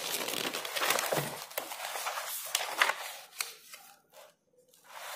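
Paper rustling and crinkling as a notebook page is handled and turned, dying away about three seconds in.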